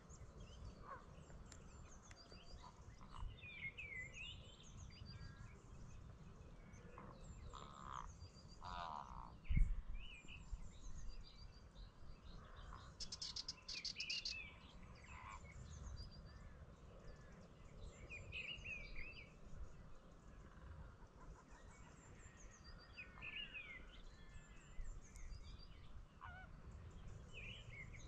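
Faint goose-like honking and chattering from a flock of greater flamingos, many short calls overlapping. There is a low rumble underneath, a thump about a third of the way through, and a brief run of rapid clicks about halfway.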